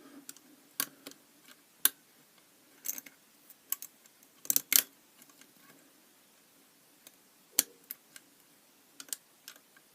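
Scattered light metallic clicks and ticks from a pick wire and tensioner working the levers of a Belfry four-lever padlock, irregularly spaced, with a small cluster of clicks a little before halfway.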